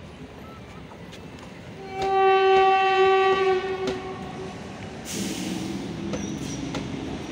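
Electric locomotive horn sounding one steady blast of about two seconds, followed from about five seconds in by the growing rumble of an approaching goods train.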